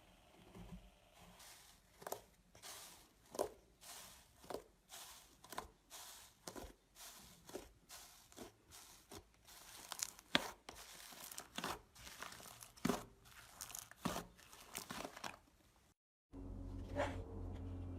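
Crisp crackling and crunching, about two sharp crackles a second, as a crunchy material is pressed or broken. Near the end it cuts to a low steady hum.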